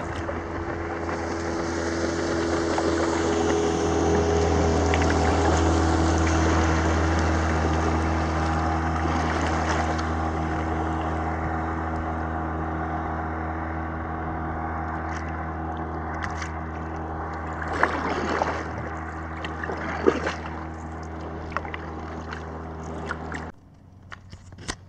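Motorboat engine running at speed as the boat passes, a steady droning note that swells for the first several seconds and then slowly fades, until it cuts off suddenly near the end. A few splashes of wake water slapping the kayak hull come in the last seconds before the cut.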